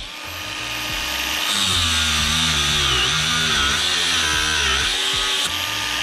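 Cordless angle grinder spinning up and cutting metal with a cut-off disc. Its pitch wavers as the disc bites into the metal, and it eases off briefly near the end.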